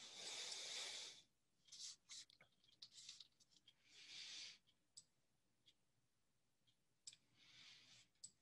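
Faint computer keyboard typing and mouse clicks: scattered sharp clicks, with three short soft hissing sounds between them.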